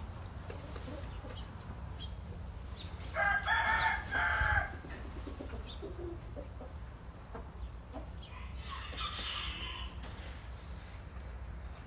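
A young rooster crowing once about three seconds in, a short crow broken into two parts. A second, fainter call follows near the nine-second mark.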